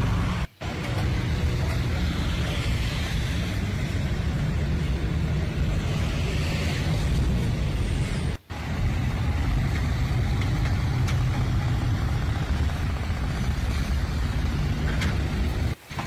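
Steady low rumbling noise with a hiss above it. It cuts out sharply for a moment three times: about half a second in, about eight seconds in, and near the end.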